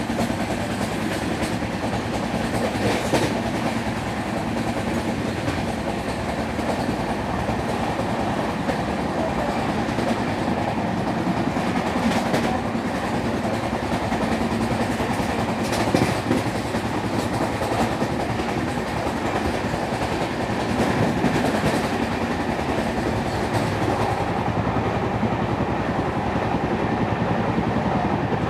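Jan Shatabdi Express passenger coach running at speed, heard from its open doorway: a steady rumble of wheels on the rails with a few sharp clacks over rail joints.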